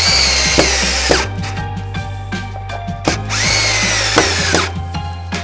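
Cordless drill driving screws into a wooden 2x4 brace, in two bursts of about a second and a half each, the motor whining as the screw bites into the wood.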